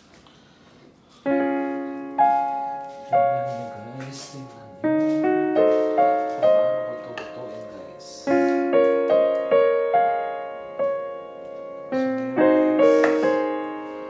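Background piano music, single notes and chords, starting about a second in. A few faint knife taps on a wooden chopping board sound underneath.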